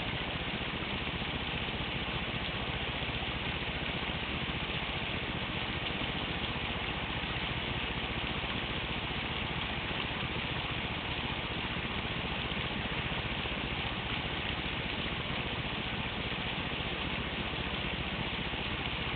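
Running water rushing steadily, an even rush that holds at the same level throughout.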